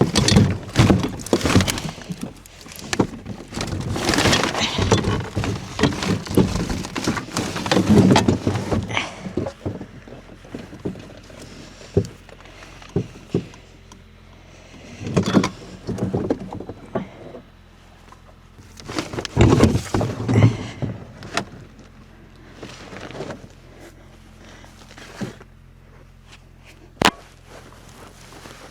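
Irregular thuds, clunks and knocks of heavy gear and logs being moved and handled, loudest in the first third and in two later clusters, with a faint steady low hum from about halfway.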